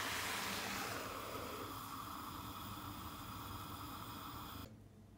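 Lidded pan of tangerine halves in sugared water boiling on the stove, a steady bubbling hiss. It fades after about a second and cuts off abruptly near the end.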